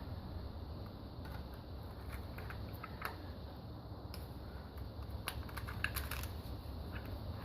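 Scattered light clicks and taps of hand work on metal engine parts, bunched together about five to six seconds in, over a steady low hum.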